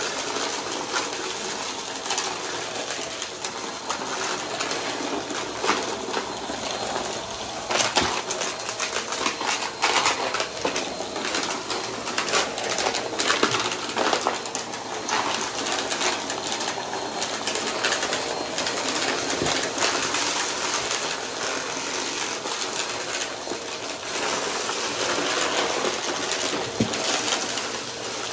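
Upright vacuum cleaner running steadily on a rug, with crunchy debris rattling and clicking up through it in irregular bursts, thickest about a third of the way in.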